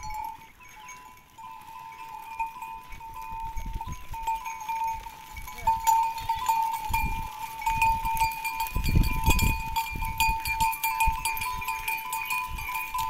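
A large herd of goats on the move, with their bells ringing steadily and clinking. There are a few low rumbles, loudest about nine seconds in.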